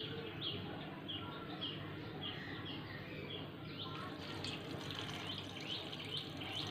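Water pouring from a plastic jug into an aluminium pot of raw red lentils and vegetables, a soft splashing hiss that comes in about halfway through. Small birds chirp throughout, short high falling chirps a couple of times a second.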